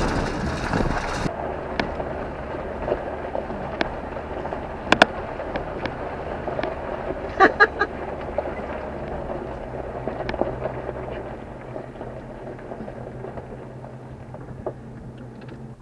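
Jeep driving slowly on a dirt and gravel road: a steady low engine hum and tyre rumble with scattered sharp clicks, a cluster of them about halfway through. Wind buffeting the microphone cuts off abruptly about a second in, and the driving noise grows quieter toward the end.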